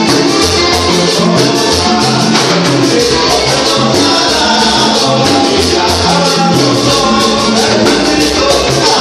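Live Latin gospel band playing: button accordion carrying the melody over congas, a stepping bass line and shaker-like percussion, with a man singing.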